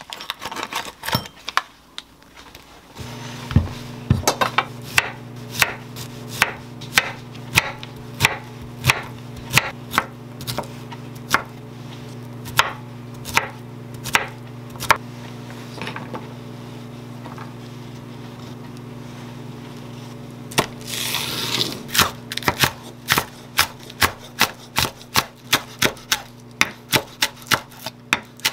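Chef's knife chopping zucchini and then green onion on a wooden cutting board. The knocks come evenly at about one and a half a second, stop for a few seconds, then pick up to a faster two or three a second near the end. A steady low hum from the microwave oven starts about three seconds in.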